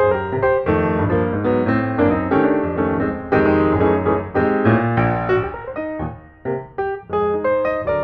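Piano music playing a quick, continuous run of notes, softening briefly about six seconds in.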